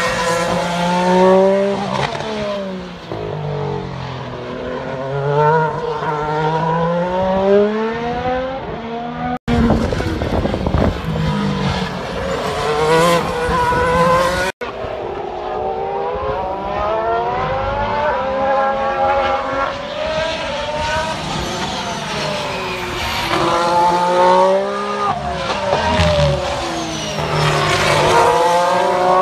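Formula 1 cars' 1.6-litre turbocharged V6 hybrid engines heard from the grandstand as cars brake, downshift and accelerate through a corner, the pitch falling then climbing again several times. About a third of the way in, an abrupt cut brings a rougher, noisier stretch of about five seconds before the engine sweeps return.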